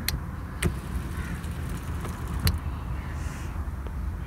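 Low steady rumble with three short sharp clicks or knocks, the loudest about two and a half seconds in.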